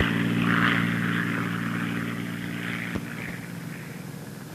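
Crop-dusting plane's piston engine and propeller droning steadily, fading away over the few seconds as the plane moves off.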